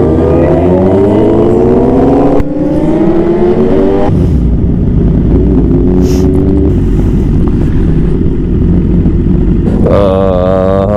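Liter-class sportbike's inline-four engine accelerating hard: the pitch rises, breaks at an upshift about two and a half seconds in and again at about four seconds, then runs steadier under wind noise. A brief warbling sound comes near the end.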